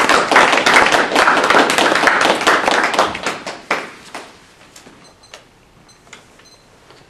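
Small audience applauding, the clapping dying away about four seconds in. A few faint clicks follow.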